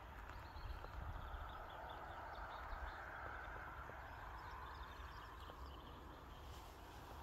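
Faint outdoor ambience: a series of small bird chirps a few seconds in, over the steady distant hum of main-road traffic and a low wind rumble.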